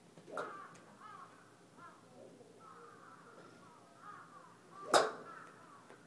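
One sharp crack of a golf club striking a ball about five seconds in, the loudest sound here, over repeated bird calls.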